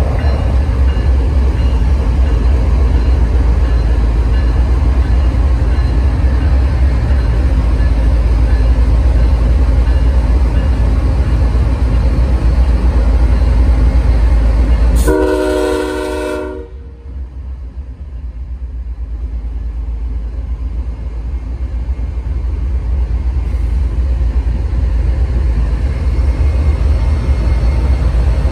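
Union Pacific diesel locomotives rumbling past at close range as an intermodal train starts up. About halfway through, one horn blast of several notes sounds for about a second and a half; the rumble then drops off and slowly builds again as the next units come by.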